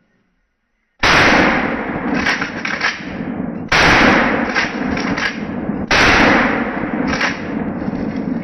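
Pump-action shotgun fired three times, about two and a half seconds apart, each shot loud and trailing off in a long echo. Sharp metallic clacks between the shots are the slide being racked to chamber the next shell.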